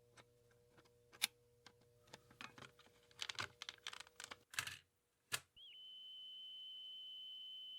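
Light plastic clicks and taps, then a quick run of rattling clicks and one sharp click, typical of a cassette player's door and buttons being worked. About two thirds of the way in, a steady high-pitched tone starts with a brief wobble in pitch and then holds level.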